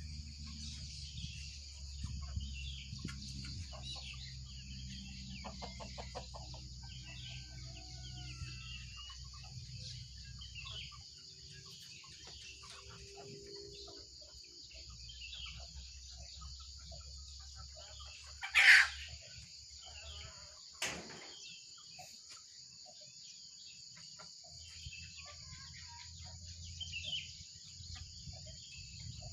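Varied small birds chirping over a steady high insect buzz. A loud, brief call stands out about two-thirds of the way through, and a low hum runs under the first third.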